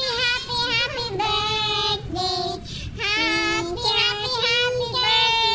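A high singing voice carrying a melody in long held notes, stepping up and down in pitch with short breaths between phrases.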